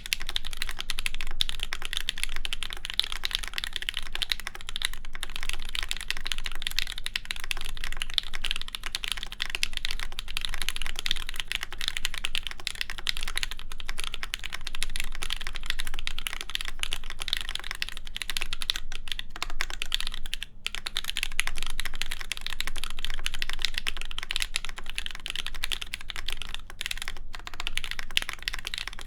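Continuous fast typing on an ai03 x PrimeKB Meridian mechanical keyboard with lubed JWK Ms Piggy linear switches, a full aluminium plate and GMK keycaps. The keystrokes run densely, with a few brief pauses.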